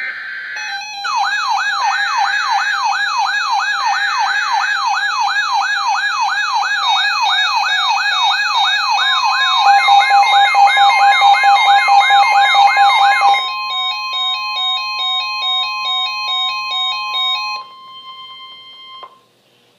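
NOAA Weather Radio emergency alert tones: short screeching SAME header data bursts, then the steady long warning alarm tone that starts about nine seconds in and stops just before the end. Over them an electronic siren yelps, about three sweeps a second, and about thirteen seconds in it gives way to a choppy, pulsing alarm for a few seconds.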